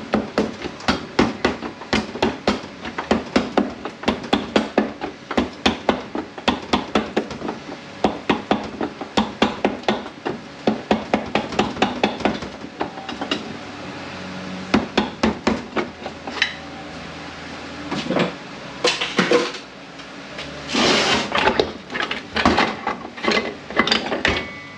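Hammer tapping repeatedly on the front pump of an A500 automatic transmission, several taps a second, while a pry bar walks the pump out of the case. Near the end the taps give way to a few longer scraping sounds as the pump comes free.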